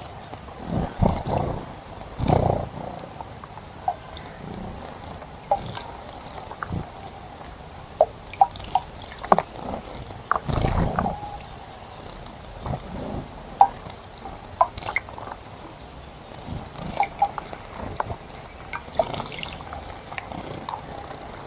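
Small birds splashing and fluttering in the water of a bird bath in irregular bursts, the biggest splash about ten seconds in, with short high chirps here and there.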